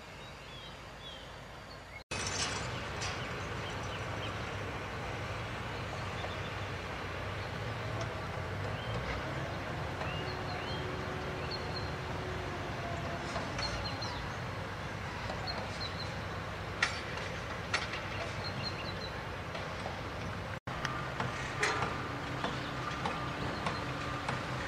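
Distant construction-site noise: a steady low machine rumble with occasional sharp knocks and clanks, more of them near the end, and small birds chirping.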